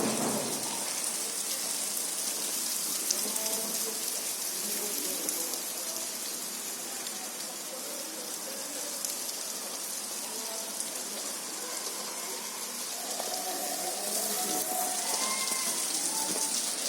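Steady hiss of water outdoors, rain or a rushing stream, with faint short tones here and there, more of them near the end.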